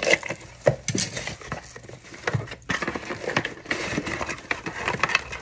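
A paper shipping package being handled and torn open: rustling, crinkling and sharp ripping sounds with small clicks.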